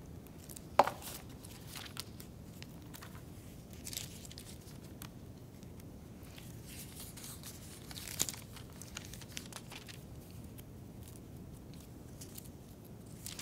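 Pages of a Bible being leafed through and turned: faint paper rustling with a sharper crinkle about a second in and another around the middle.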